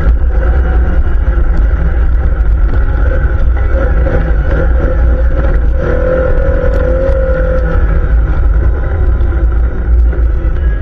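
Quad bike (ATV) engine running steadily, its pitch wavering slightly.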